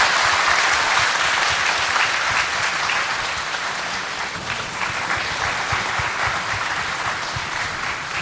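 Audience applauding, many hands clapping together in a dense, steady patter that slowly eases off.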